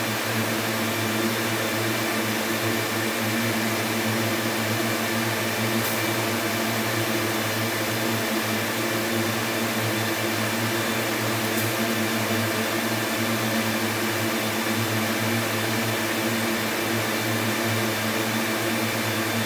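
Textile yarn machinery running in a mill: a steady drone of motor hum with several steady tones under a constant hiss.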